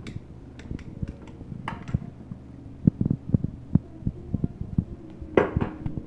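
A long metal spoon clinking and knocking against a tall glass as a snow cocktail is stirred, in irregular strokes that are loudest about three seconds in and again near the end.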